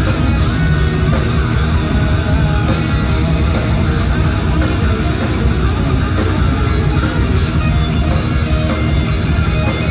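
Live instrumental progressive metal: distorted electric guitars over a drum kit, played loud and without a break through the venue PA, heard from the audience.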